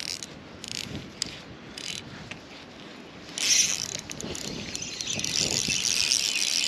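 Spinning fishing reel being cranked to wind in line: a few short high-pitched bursts, then from about halfway a louder, steady high whirring.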